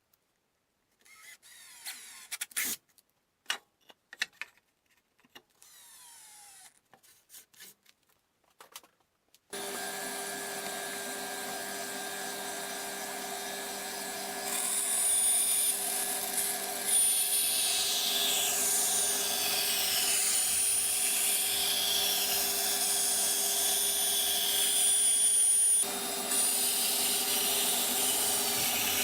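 Scattered clicks and knocks of hand work, then a power tool starts about ten seconds in and runs steadily, getting louder with a high whine about five seconds later and dipping briefly near the end.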